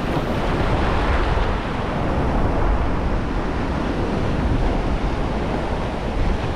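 Shallow ocean surf washing and breaking steadily, with wind rumbling on the microphone.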